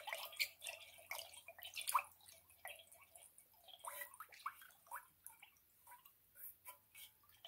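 Water dripping and plinking into a large metal basin of water: a scatter of small irregular drops, several a second.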